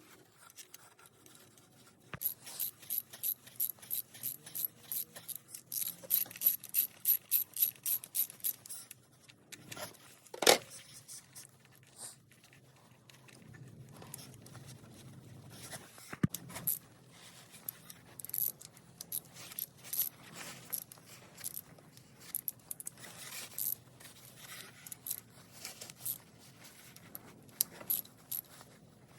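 Hand ratchet on a 10 mm socket clicking in a quick, even run of strokes for several seconds, then a single sharp metallic knock. After it come scattered tool clicks and scrapes on metal.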